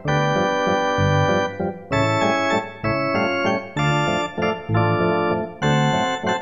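Background keyboard music with an organ sound: sustained chords over low bass notes, changing about once a second.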